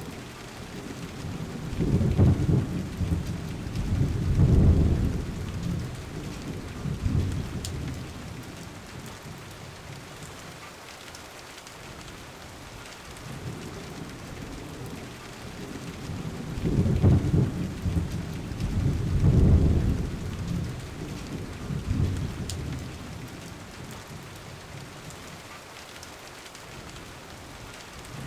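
Steady rain with two long rolls of thunder, each rumbling low in several swells: the first about two seconds in, the second a little past halfway.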